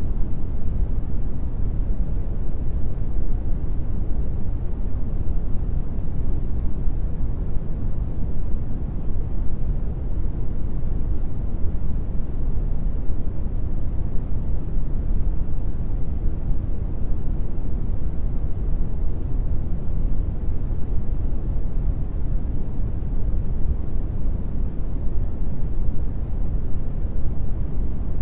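Brown noise: a steady, deep rushing sound, strongest in the bass, with no tones or changes.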